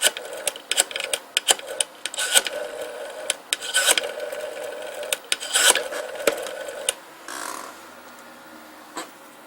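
Rotary telephone dial being wound and let go for one digit after another: bursts of sharp pulse clicks alternate with the steady whir of the dial spinning back.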